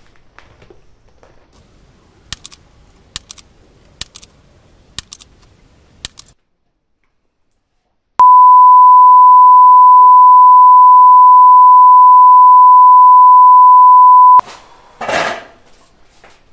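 A loud, steady, single-pitched bleep tone held for about six seconds, starting and stopping abruptly after a moment of dead silence, the kind laid in during editing. Before it come faint sharp clicks in pairs, and a short noisy burst follows right after it.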